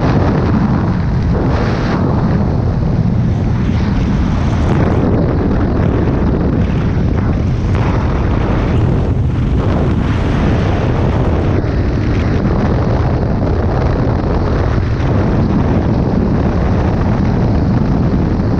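Loud, steady rush of wind buffeting the microphone, mixed with the engine and propeller of a small single-engine high-wing plane, heard at its open jump door in flight.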